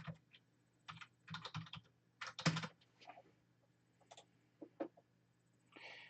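Typing on a computer keyboard: faint, irregular runs of keystrokes with short pauses between them.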